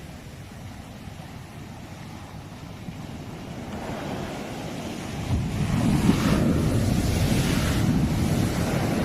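Sea waves breaking on the shore. A wave swells in about halfway through and rushes in loudly for the last few seconds, with wind buffeting the microphone.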